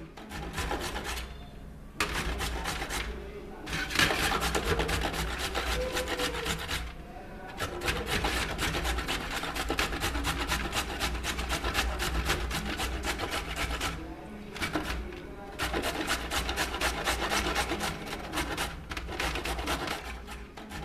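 Fresh carrots being grated by hand on a stainless-steel box grater: rapid rasping strokes of carrot against the metal teeth, broken by a few brief pauses.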